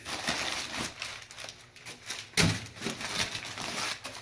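Crumpled brown kraft packing paper rustling and crinkling as hands dig through it and pull it out of a cardboard box, with one sharper crackle about two and a half seconds in.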